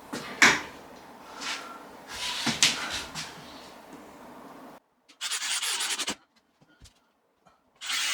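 A few knocks and rubbing of wooden panels being handled, then a power drill runs for about a second, and starts again near the end.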